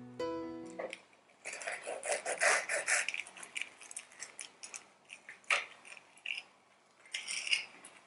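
A knife crunching through the crisp fried breadcrumb crust of a Scotch egg: a dense crackle for a couple of seconds, then scattered crackles and clicks. A guitar tune stops about a second in.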